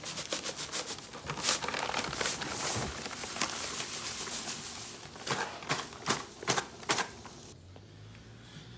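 Dry sand topping mix pouring from a paper bag into a plastic wheelbarrow: a steady rushing hiss with the crackle of the bag's paper, then about five sharp rustles as the bag is shaken out. It goes quieter about three-quarters of the way through.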